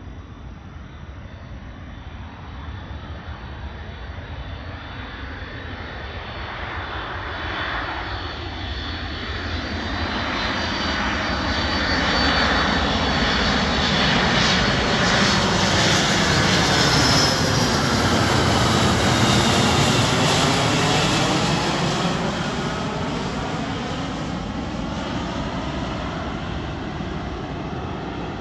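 Boeing C-32A (military Boeing 757) on final approach passing low overhead, its two Pratt & Whitney PW2040 turbofan engines building to a loud roar and then fading away. A high engine whine drops in pitch as the jet goes past.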